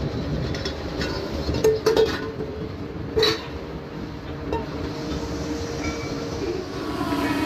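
Metalworking in a kettle-making shop: a machine runs steadily while metal strikes metal in a few sharp clinks that ring briefly, about two and three seconds in.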